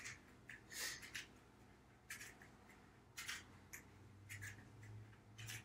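Near silence: room tone, with a few faint, brief rustles from a person moving.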